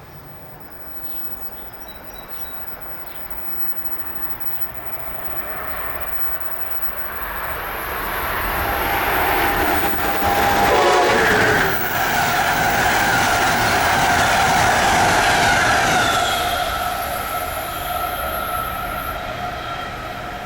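Amtrak Northeast Regional train approaching and passing at speed, sounding its horn about halfway in. Rushing wheel and rail noise builds to a peak and eases off near the end.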